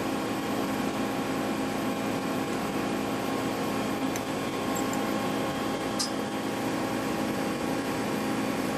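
Steady machine-shop hum made up of several fixed tones, with a faint click about four seconds in and another about six seconds in, as the tool-post riser's ball lock fasteners are tightened by hand.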